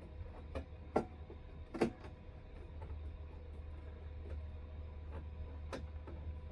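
A few sharp clicks and knocks from an air-conditioner cover being handled, the two loudest about one and two seconds in, over a steady low hum.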